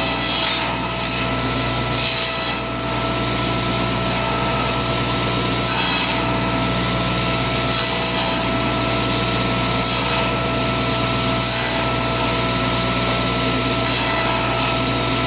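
Table saw running steadily, its blade trimming the edge of a wooden board being shaped into a circle on a pivot nail, with a short hiss of cutting every few seconds as the board is turned and fed into the blade.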